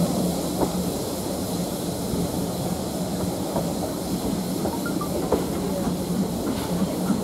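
Steam-hauled passenger train running along the line, heard from an open carriage window: a steady rumble and hum from the coaches' wheels on the track, with a few scattered clicks.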